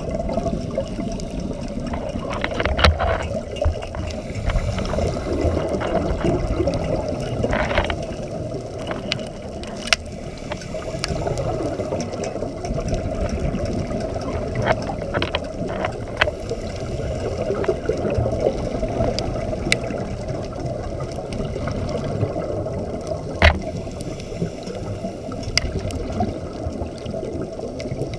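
Underwater sound through a camera housing: a steady muffled water rumble, with scuba divers' exhaled bubbles gurgling every few seconds and a few sharp clicks.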